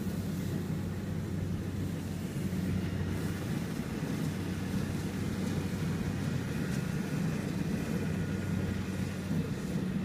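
Diesel engine of a crawler rice combine harvester running steadily while it harvests, a constant low drone.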